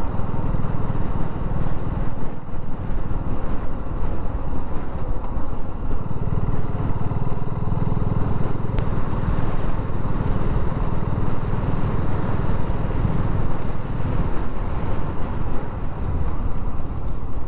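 BSA Gold Star 650's single-cylinder engine running steadily as the bike is ridden along a road, heard from the rider's position with wind and road noise mixed in.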